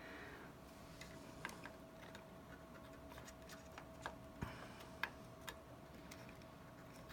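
Faint, scattered clicks and taps of memory DIMMs and their plastic slot latches being handled during a module transfer, over a faint steady tone.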